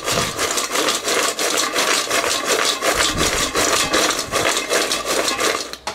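Freshly fried, crisp raspatat fries being shaken and tossed in a stainless steel bowl, a rapid rhythmic rattle and scrape against the metal as they are coated with seasoning. It stops just before the end.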